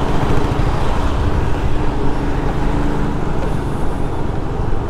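Steady road traffic noise, heard while riding a two-wheeler through congested city traffic: many vehicle engines running at once.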